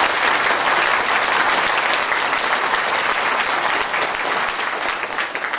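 Large seated audience applauding, a dense steady clatter of many hands clapping that gradually dies down toward the end.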